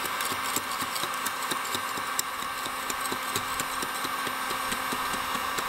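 Electric heat gun blowing with a steady whirring hum, while a scraper scrapes and crackles with many irregular clicks as it lifts heat-softened paint and non-skid texture off a fibreglass deck.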